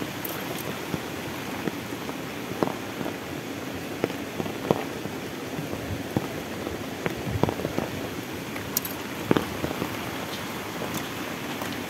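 Heavy tropical rain falling steadily, a dense even hiss, with scattered louder drops knocking sharply on nearby surfaces now and then.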